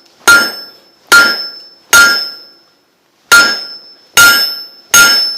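Hand hammer striking hot 5/8-inch steel rod on an anvil: six ringing blows about a second apart, with a short pause after the third, setting the stock down about an inch back from the end.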